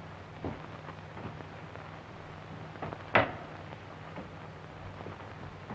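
Steady hiss and crackle of an old film soundtrack over a low hum, with a few faint knocks and one sharp knock about three seconds in.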